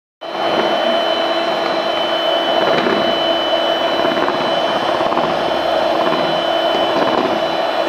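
Electric hand mixer running steadily, its two wire beaters whipping egg whites and sugar in a steel bowl: a constant motor whine over a whirring rush.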